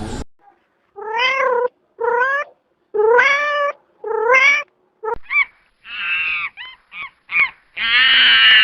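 An animal calling with high, pitched cries: four drawn-out calls that rise in pitch, about one a second, then a quicker run of shorter calls and two longer, louder ones near the end.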